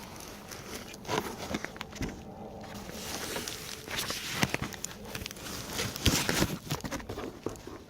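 Irregular rustling, clicks and knocks of an unboxed motorcycle exhaust and its packaging being handled, with a couple of sharper knocks past the middle.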